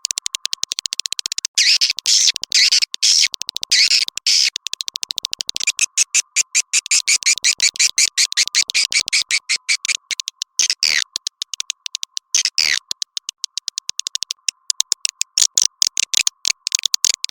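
Swiftlet lure recording: fast, dense chattering of high chirps and clicks, several a second, with a few longer falling chirps and a faint steady high tone underneath. It is the call played to attract wild swiftlets to nest in a swiftlet house.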